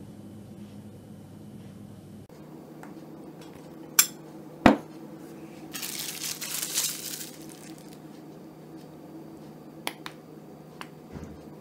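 Metal spoon knocking twice against glass, a little under a second apart, as pomegranate arils are tapped off it, then a short rustle and a light tick later on.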